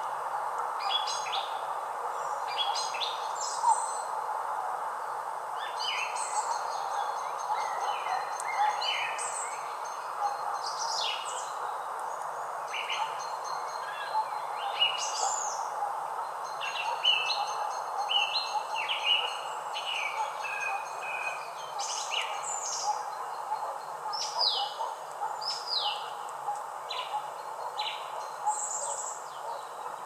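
Wild songbirds singing and calling: a dense mix of short chirps, whistles and quick rising and falling notes, over a steady background hiss.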